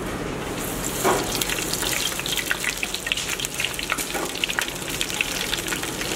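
Aloo tikki burger patties deep-frying in hot oil in an electric deep fryer. There is a sudden rush of sizzling about a second in as they go into the oil, then steady sizzling with many crackling pops.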